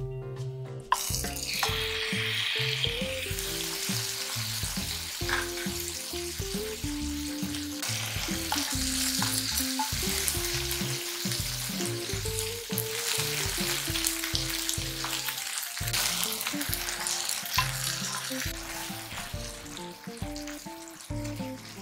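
Chicken pieces and minced onion sizzling in oil in a frying pan, starting about a second in. Soft background music plays underneath.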